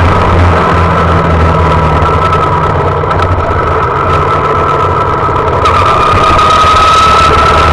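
Honda Monkey's small single-cylinder four-stroke engine running loud and steady, heard close up. A thin whine rides over the drone and rises slowly from about six seconds in.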